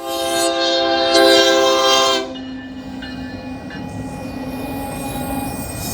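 Locomotive air horn sounding one chord of several tones for about two seconds, then cutting off sharply, leaving the steady rumble of the train running along the rails.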